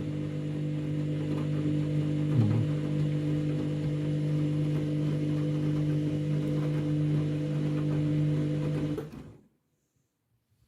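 Washing machine motor turning the drum at a steady speed with an even hum. The motor cuts out abruptly about nine seconds in, leaving near silence.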